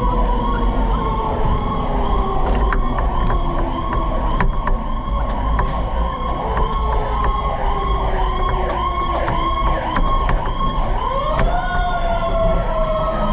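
Pierce tiller ladder truck's sirens on an emergency response: one siren yelps rapidly, about two yelps a second, while a second siren tone slowly winds down in pitch and then rises again sharply about ten seconds in. The truck's engine and road rumble run underneath.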